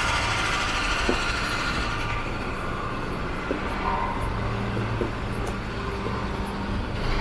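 A vehicle running, a steady low engine hum over a haze of street noise, with the hum growing stronger from about four seconds in.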